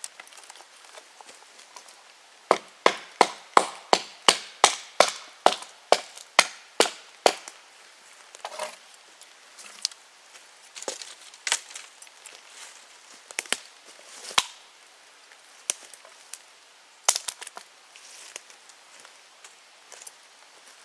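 A blade chopping into wood: a quick run of about fourteen sharp strikes, roughly three a second, then a few slower, scattered knocks.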